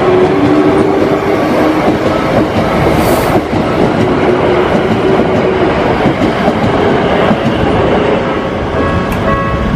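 Keikyu electric train passing close by at a level crossing, its wheels clattering over the rail joints, loud and steady.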